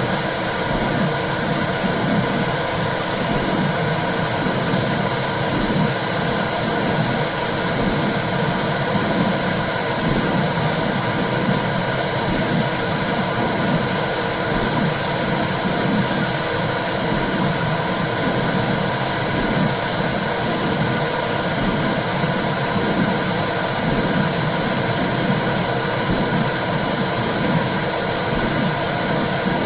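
Womb sound played for a baby: a steady, loud rushing hiss with a low, rhythmic whooshing pulse, like blood flow and a heartbeat heard from inside the uterus.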